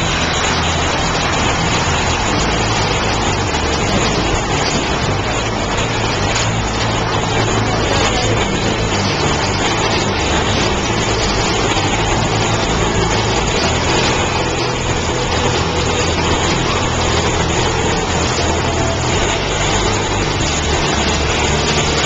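Big Thunder Mountain Railroad mine-train roller coaster running on its track, a steady, unbroken rumble and rattle heard from a seat on board.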